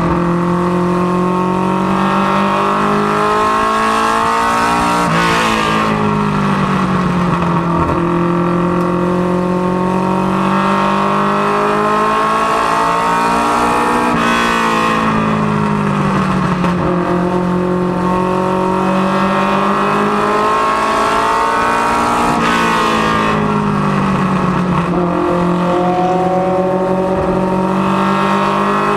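Ministock race car's four-cylinder engine, a Fox-body Mustang LX notchback, heard from inside the cockpit under race load. Its pitch climbs under throttle down each straight and drops off through each turn, a cycle that repeats about every eight and a half seconds, lap after lap.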